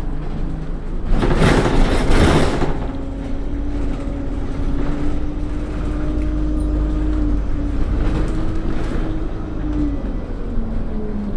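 A bus's engine and drivetrain running, heard from inside the passenger cabin: a steady low rumble under a whine that holds level for several seconds and drops in pitch near the end. A loud hiss rises over it about a second in and lasts a couple of seconds.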